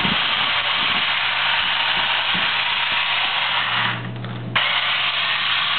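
Snap Rover toy car's electric drive motors and gearboxes whirring steadily as it drives, dropping away briefly about four seconds in.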